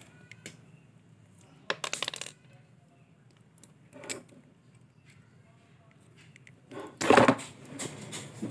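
Small metallic clicks and clinks from a screwdriver and wire terminals being handled while the old power cord is disconnected. There is a quick cluster of clicks about two seconds in, and a louder knock with rustling near the end.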